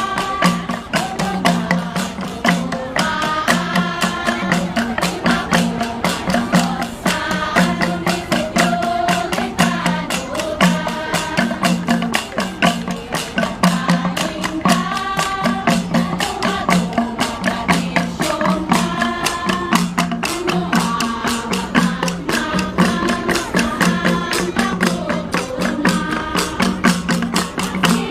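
Kalinga flat gongs (gangsa) played as an ensemble in a fast, even, unbroken beat, with a sung melody line over the gongs.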